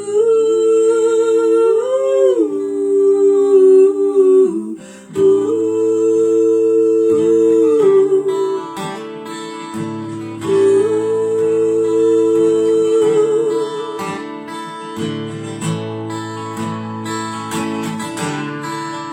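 Acoustic guitar played under wordless sung vocal harmonies: long held 'ooh' notes that bend in pitch about two seconds in and waver with vibrato near the end, with a brief pause just before five seconds.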